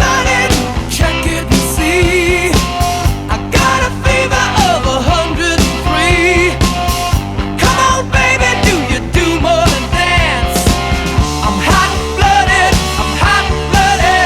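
Rock music with a singer, drums and guitar.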